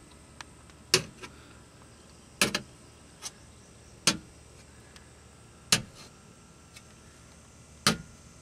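About seven sharp clicks and taps, spaced unevenly, as a flathead screwdriver works the quarter-turn fasteners on a Honda Civic's aluminum engine undershield.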